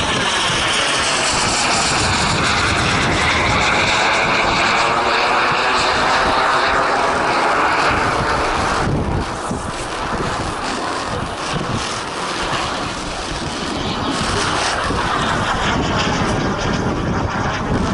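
An aircraft engine passing overhead, its sound sweeping slowly in tone, loudest for the first nine seconds or so, dropping away, then building again for another pass near the end. Wind rumbles on the microphone throughout.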